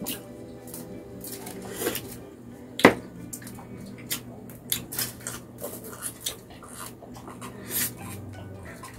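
Close-up mukbang eating sounds: chewing and lip smacking, with fingers working rice and grilled chicken on aluminium foil, heard as a run of small clicks and smacks with one sharp click about three seconds in. Later a glass of cola is drunk from.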